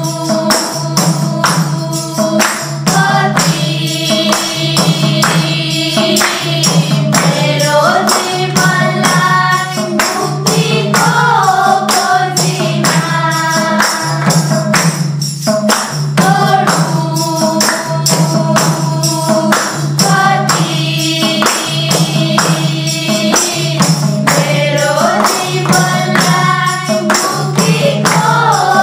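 A group of young voices singing a Nepali Christian bhajan together, with hand-clapping and a tambourine keeping a steady beat.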